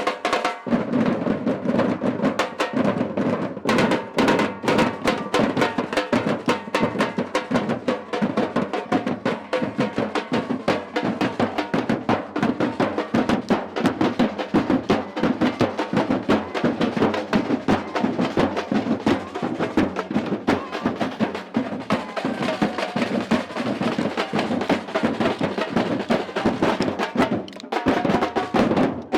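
Samba percussion ensemble (batucada) drumming, a dense rhythm over an even low bass-drum pulse, with a brief break near the end before the drumming picks up again.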